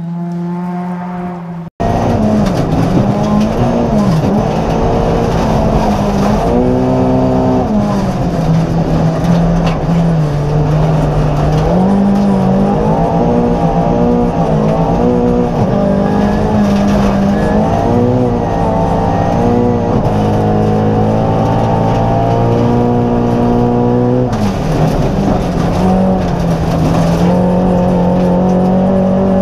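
Volvo 240 rally car's engine driven hard on a stage, revs rising and falling repeatedly through gear changes. The sound cuts out for an instant about two seconds in and resumes louder.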